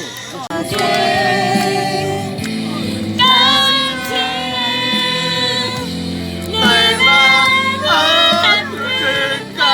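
A song: a singing voice holding long notes with a slight vibrato over musical accompaniment, in several phrases.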